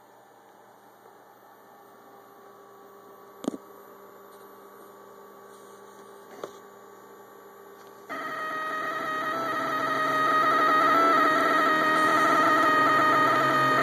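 A faint electrical hum with two small clicks, then about eight seconds in the Rostock Max delta 3D printer's stepper motors start a steady whine of several pitches that grows louder over the next two seconds, as the effector runs through the calibration moves.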